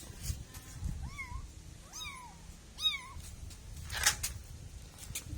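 A kitten meowing three times in quick succession, short high mews that rise and fall in pitch. About four seconds in comes a brief scratchy noise.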